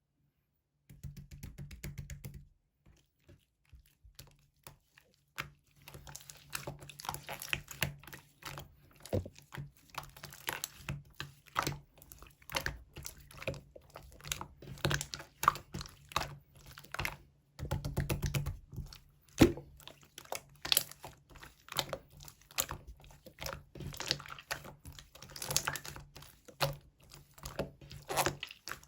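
Slime being squeezed and pressed by hand, giving rapid sticky clicks and pops of trapped air. A short burst comes about a second in, then a few sparse seconds, then near-continuous clicking.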